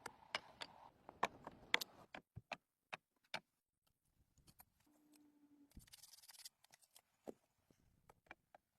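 A scatter of sharp clicks and snaps at irregular intervals, closest together in the first two seconds, with a brief steady hum and then a short hiss about five to six seconds in.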